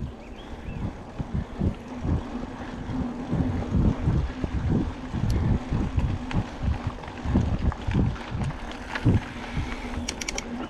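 Mountain bike ridden over bumpy dirt singletrack: a run of irregular low knocks and rattles as the bike jolts over the ground, over a steady low hum and wind noise on the microphone, with a few sharp clicks near the end.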